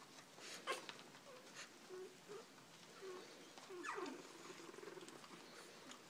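Three-week-old pug puppies making faint short squeaks and grunts, with one falling whine about four seconds in. A sharp click under a second in is the loudest moment.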